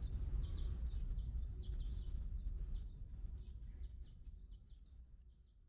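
Small birds chirping, short calls coming several times a second, over a low steady outdoor rumble; the whole sound fades out over the last couple of seconds.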